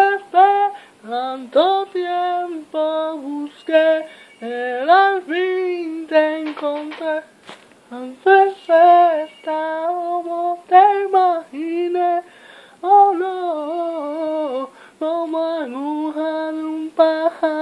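A young person's solo voice singing unaccompanied, holding notes in phrases of a second or two with short breaks for breath between them.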